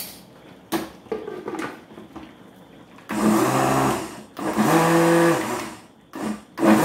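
Arno electric blender run in short pulses to mix baking powder into a batter of eggs, milk, oil and flour: two bursts of about a second each, then two shorter ones near the end. A few light knocks come before the first pulse.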